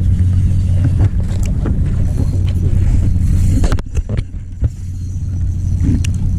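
An outrigger fishing boat's engine running with a steady low drone. It dips briefly about four seconds in, with a couple of knocks, then comes back up.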